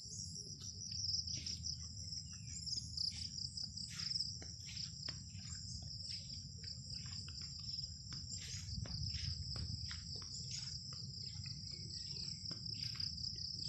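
Steady high-pitched chorus of insects trilling without a break, with scattered short rustles and clicks from walking through grass and a low rumble underneath.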